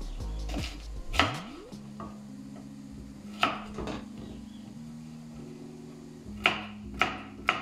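Kitchen knife chopping a carrot on a wooden cutting board: a few separate cuts, then a steady run of chops about two a second near the end.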